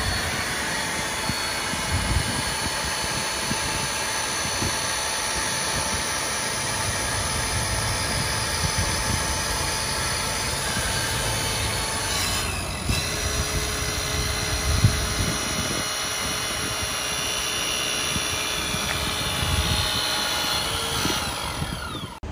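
Battery-powered Hurst hydraulic rescue tools running: a steady motor-and-pump whine as the cutter's jaws work. About 13 seconds in the whine changes to the spreader's as its arms open, and it stops just before the end.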